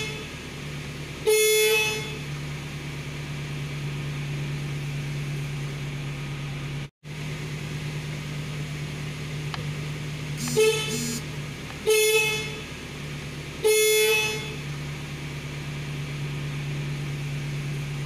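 Stock factory horn of a Suzuki Carry Futura sounded in short honks: once about a second and a half in, then three more spaced a second or two apart between about ten and fourteen seconds. A steady low hum runs underneath.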